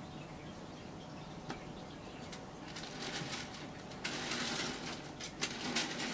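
Handling noise as a panel is worked into place on a workbench: a few light clicks and taps, then scraping and rustling with sharp knocks from about four seconds in.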